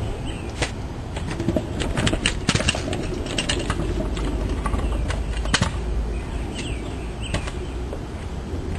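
A scooter rolling over a paved patio, its small hard wheels clicking and rattling irregularly over the paving joints above a steady low rumble.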